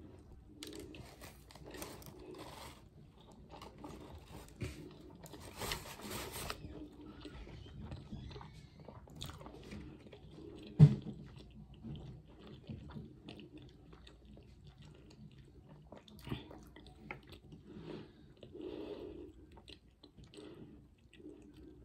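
Close-up biting and chewing of a crunchy fried, breaded flounder sandwich, with crackly crunches in the first few seconds. About halfway through there is one sharp, loud knock.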